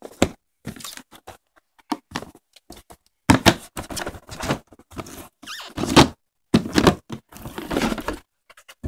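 Cardboard board-game box being opened and its contents handled close to the microphone: irregular knocks, scrapes and rustles, with two sharper knocks about three and six seconds in and a stretch of rustling near the end.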